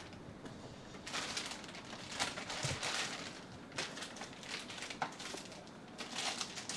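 Packaging being handled: irregular rustling and crinkling, with scattered light clicks and knocks.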